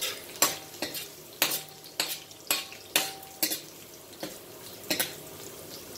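Ginger and garlic sizzling in canola oil while a cooking utensil stirs them, knocking against the pan about ten times at uneven intervals, a few of the knocks ringing briefly.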